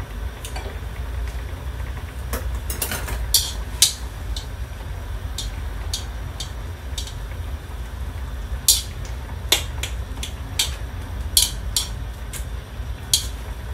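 Chopsticks knocking and scraping against a metal wok as instant noodles and greens are stirred in broth: irregular light clicks and taps over a steady low rumble.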